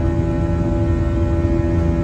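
Airliner jet engines heard inside the cabin during the climb after takeoff: a steady drone of low rumble with several constant tones.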